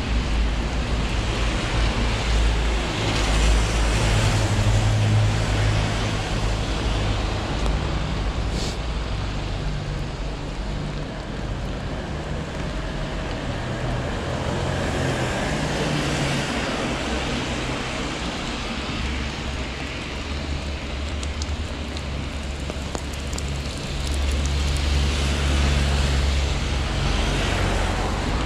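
Rainy street ambience: a steady hiss of wet roads and distant traffic with a low rumble of wind on the microphone, and one small click about eight and a half seconds in.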